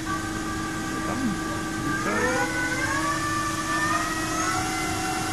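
Ajax Fel 1760 CNC lathe's spindle running under its 7.5 HP motor, a steady hum with a whine that rises in pitch about two seconds in as the spindle speed is turned up, then holds at the higher speed.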